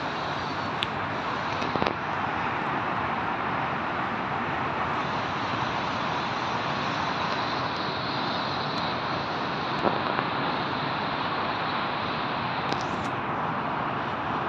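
Steady wash of distant road traffic from a busy multi-lane highway far below, with a couple of faint clicks.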